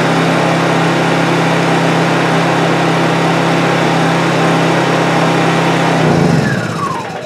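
Honda EU2200i inverter generator's single-cylinder four-stroke engine running steadily, then switched off about six seconds in, winding down with a falling whine.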